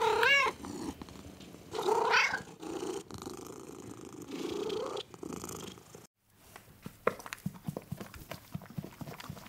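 Domestic cat meowing, with a rising-falling call at the start and another about two seconds in, and a low purr between them. After a brief break about six seconds in, a scatter of faint clicks and knocks follows.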